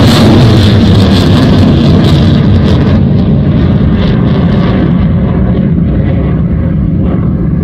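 Rocket motor of a launched missile: a loud, even rushing noise with crackle. About three seconds in the high end falls away, and it slowly gets quieter as the missile climbs away.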